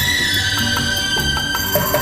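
Background music: sustained melodic tones, one gliding downward, over a steady beat, with plucked notes coming in near the end.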